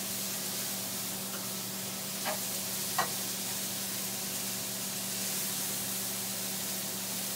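Banana blossom and bitter melon sizzling in oil in a skillet while a spatula stirs them, with two short taps or scrapes of the spatula about two and three seconds in. A steady low hum runs underneath.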